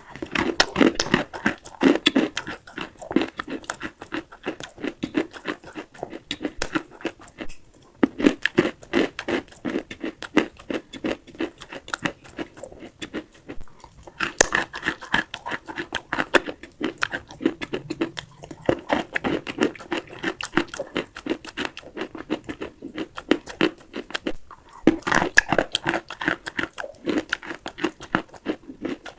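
Close-miked chewing of dry clay: rapid, gritty crunching bites in repeated runs with short pauses between mouthfuls.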